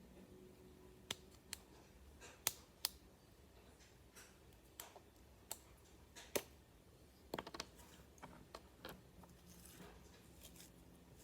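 Slime being handled, giving off faint, irregular small clicks and pops, about a dozen, with a quick cluster of them past the middle.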